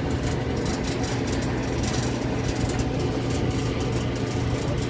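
Whirlpool clothes dryer running: a steady motor hum and drum rumble, with light irregular clicks over it.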